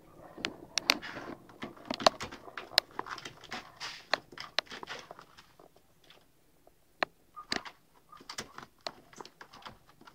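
A pet dog moving about: scattered sharp clicks and taps with rustling scuffles, busy for the first five seconds, then sparser after a short lull.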